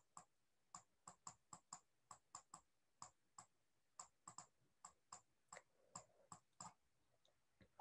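Faint, irregular clicks of a stylus tapping on a tablet screen while handwriting, about three a second.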